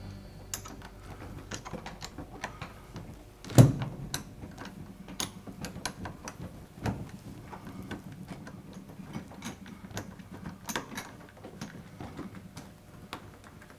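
Hex-head bolts being threaded by hand into a refrigerator's steel top door hinge: a run of small, irregular metallic clicks and ticks, with one louder knock about three and a half seconds in.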